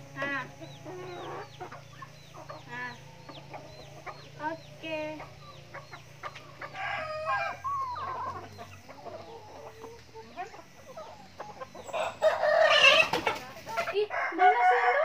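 Chickens clucking with short repeated calls, and a rooster crowing loudly near the end.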